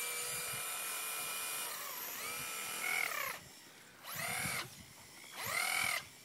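Electric motor and drivetrain of a radio-controlled truck whining at high throttle as its wheels spin on snow. The whine dips, rises and cuts off, then comes back in two short throttle blips, each rising in pitch.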